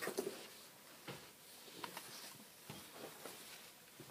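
Quiet room tone with a few faint, scattered light knocks and rustles, like small objects being handled and set down on a table.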